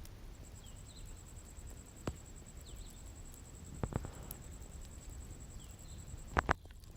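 Wood bonfire burning with a low steady rumble and a few sharp crackling pops, the loudest a double pop near the end. A steady high insect trill and faint short bird chirps run alongside.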